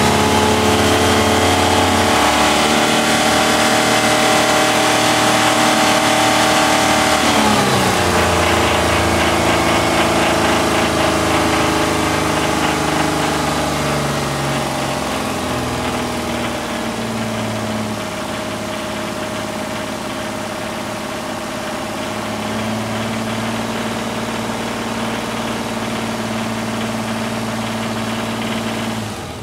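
Isuzu 6VE1 V6 engine held at raised revs, then falling back about seven seconds in and settling to a steady idle by about two-thirds of the way through. It has the knocking sound the owner is presenting on this engine at 82,000 miles.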